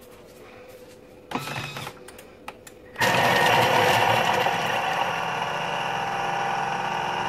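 Vorwerk Thermomix blade spinning at speed 5, chopping half an onion in the closed bowl. It starts abruptly about three seconds in and runs steadily for about four seconds.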